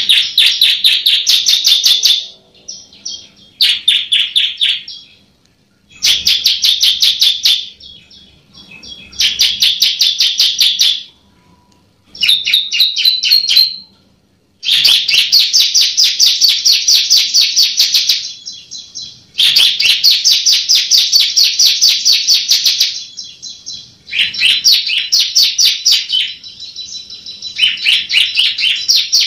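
Bar-winged prinia (ciblek) singing loudly in about nine fast phrases of rapidly repeated sharp notes. Each phrase lasts one to four seconds, with short pauses between them.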